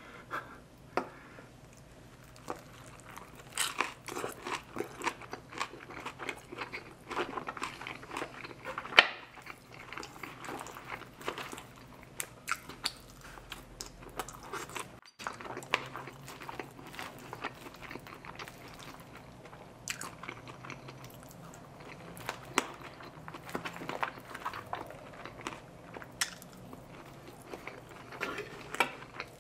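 Close-miked eating sounds: bites and chewing of a fried fish taco and carne asada fries, with frequent short, irregular crunches and wet clicks. The loudest crunch comes about nine seconds in.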